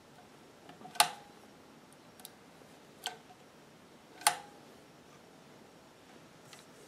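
Singer 241-12 industrial sewing machine being cycled by hand to pick up the bobbin thread: three sharp metallic clicks from its mechanism, spread over a few seconds, the first and last loudest, with a couple of faint ticks between.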